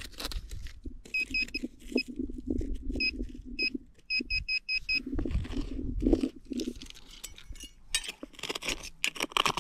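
Handheld metal-detecting pinpointer beeping short, high beeps: a few spaced beeps, then six quick ones about four seconds in as it closes on a buried target. Under the beeps runs a scraping, crunching noise of dirt being worked, and near the end come sharp clinks and rattles.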